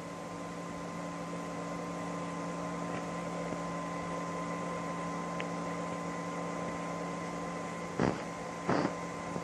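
Steady hiss and electrical hum of an old recording of a radio baseball broadcast playing before any voice comes in. A couple of brief faint sounds come near the end.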